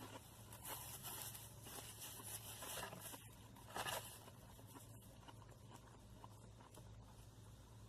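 Crackly rustling from food being handled during the meal, in a few short bursts over the first half, the sharpest near the middle; a low steady hum underneath.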